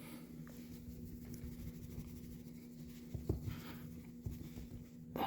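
A cat bunny-kicking and scuffling against a person's arm: faint rubbing with a few soft knocks over the second half, over a steady low hum.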